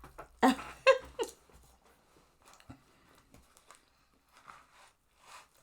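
A short vocal sound in three quick bursts, like a brief laugh, then faint soft clicks and mouth noises of someone eating.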